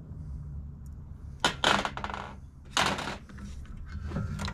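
Loose metal hardware clinking and rattling in two bursts about a second apart, with a fainter clink near the end.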